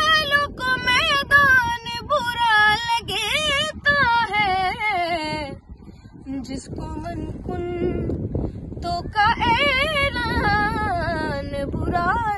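A boy singing a manqabat solo without accompaniment, in long, ornamented notes that waver in pitch. The singing drops away for a few seconds around the middle, then comes back.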